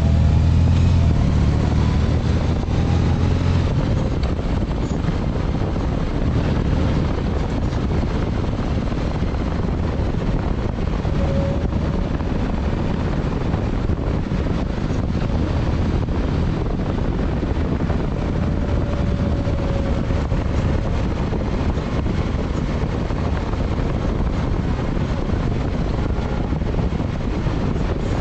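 Motorcycle riding at speed, its low engine drone clear in the first few seconds, then mostly covered by a steady rush of wind noise on the microphone.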